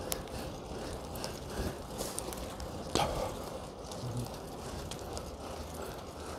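Fixed-gear bicycle rolling along a city street: steady tyre and road noise with light scattered ticks, and one sharp knock about three seconds in.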